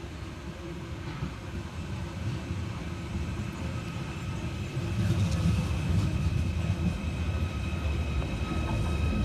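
Merseyrail Class 777 electric multiple unit running into the station, its low rumble growing louder about halfway through. Steady high-pitched tones come in near the end.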